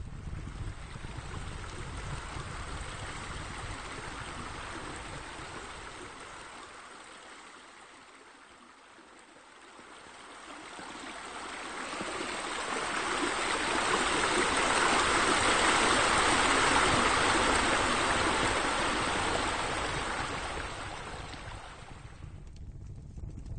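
Running water splashing steadily, swelling to its loudest in the middle and fading away near the end, over a low rumble in the first few seconds.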